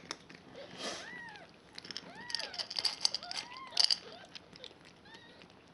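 One-day-old kittens mewing in repeated short cries that rise and fall in pitch as they nurse, while the mother cat crunches dry kibble, loudest in the middle.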